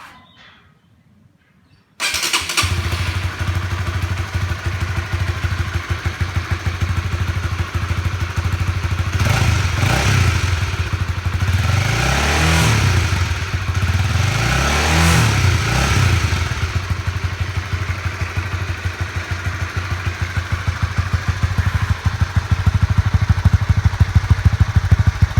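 Honda CB150R's single-cylinder engine breathing through a Prospeed Black Series full-system aftermarket exhaust, coming in suddenly about two seconds in and idling, revved up and back down a few times midway before settling to idle again.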